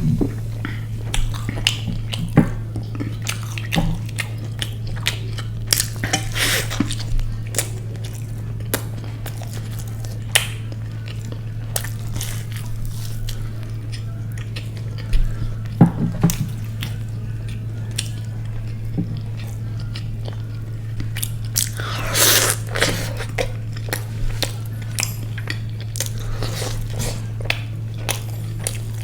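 Close-miked eating: biting into and chewing crunchy fried food, with irregular crisp crackles and small clicks that are loudest in a few bursts. A steady low hum runs underneath.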